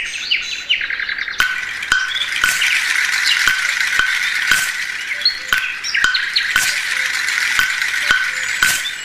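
Recorded birdsong chirping over a steady click about twice a second, the opening of a Malayalam song track played over a hall's speakers before the music comes in.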